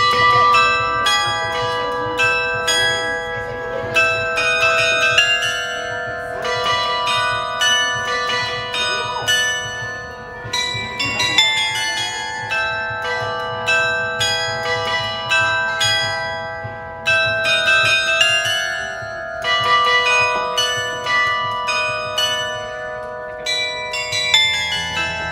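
Chime of small bronze bells in a bell tower playing a tune, struck notes at many different pitches following one another quickly, each ringing on into the next.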